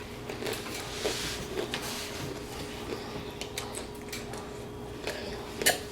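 Quiet sounds of people eating at a table: scattered light clicks and taps of food and utensils, with one sharper click near the end, over a steady faint hum.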